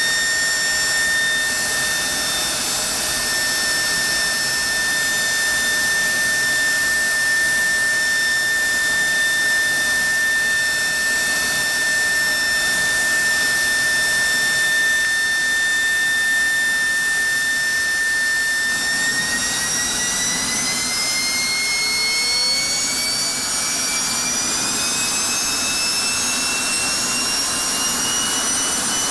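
General Electric F110-GE-100 turbofan running on a test stand: a loud rushing roar with a steady high whine. About two-thirds of the way through, the whine begins to rise steadily in pitch as the engine spools up to higher power.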